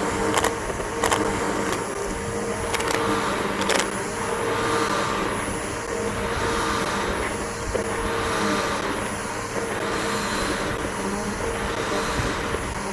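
Bissell BigGreen PowerForce upright vacuum cleaner running steadily while being pushed over grass, its motor giving a constant hum and whine with a rushing hiss. A few sharp clicks come in the first few seconds.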